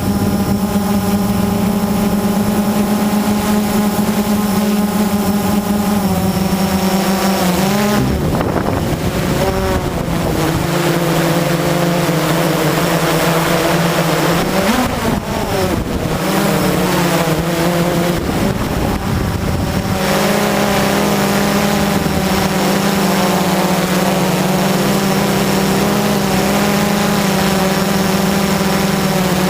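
Blade 350 QX quadcopter's brushless motors and propellers humming steadily in flight. The pitch dips and swings back up about a quarter of the way in and again near the middle, with more rushing noise through the middle stretch.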